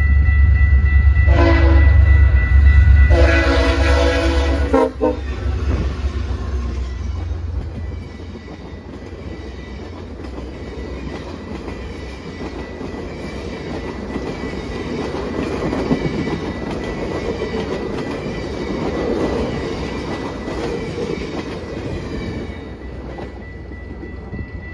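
Passenger train horn sounding two blasts, the second longer, as the locomotive passes close by with a heavy low engine rumble. Then a string of stainless-steel passenger cars rolls past with a steady rumble and wheel clatter on the rails.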